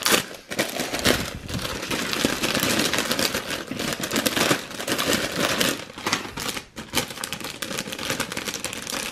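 Clear plastic bag crinkling and rustling as it is pulled open by hand and LEGO minifigure foil packets are slid out of it, a dense run of small crackles.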